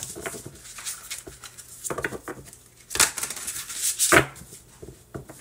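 Tarot cards being shuffled by hand: a run of short papery slaps and rustles, the loudest about three and four seconds in.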